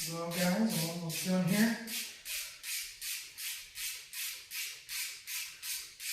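Rhythmic rubbing strokes, about two and a half a second, with a faint voice in the first two seconds.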